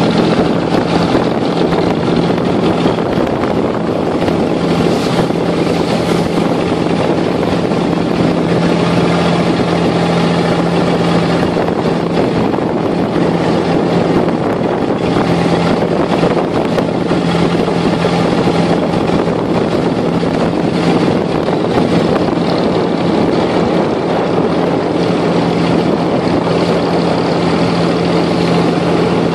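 Abra water taxi's inboard diesel engine running at a steady cruising pace, a constant low hum mixed with the rush of water along the hull.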